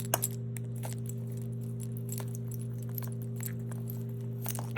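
Light clicks and jingling of a toy ball being knocked about by a pet conure, scattered irregularly, with a sharper click near the end, over a steady low hum.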